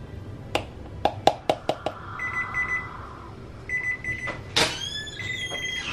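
A kitchen appliance's electronic timer beeping: three bursts of rapid, high beeps. A quick series of clicks comes before them in the first two seconds, and a louder clunk falls between the second and third bursts.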